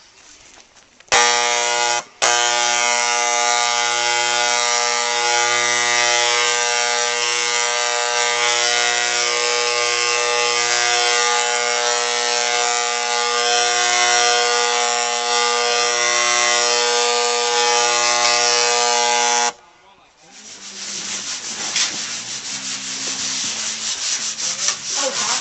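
Electric power sander running steadily with a high motor whine: it starts about a second in, cuts out for a moment, runs on and then stops sharply. After a short pause, a rougher, scratchier rubbing sound of sanding on wood builds up near the end.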